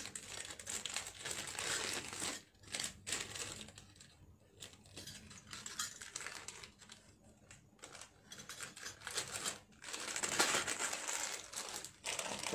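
Packaging rustling and crinkling as it is handled, in irregular spells, quieter in the middle and loudest from about ten seconds in.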